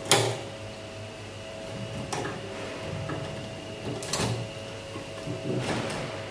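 Sharp metal clicks and knocks from an Enigma cipher machine's set of three rotors being handled and fitted into the machine. A loud click comes just after the start, then fainter clicks about two, four and five and a half seconds in.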